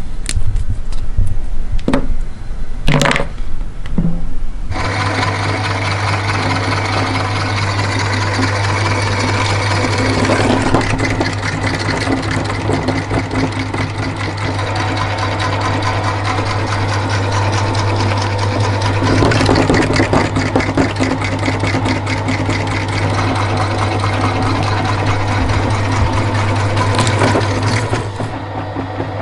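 A few knocks, then about five seconds in an electric meat grinder motor starts and runs steadily with a low hum, crunching and grinding chocolate bars through the auger.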